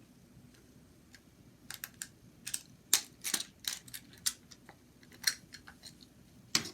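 Sharp, irregular plastic clicks and taps from handling a TrackMaster Molly toy engine's tender, a dozen or so, starting about two seconds in.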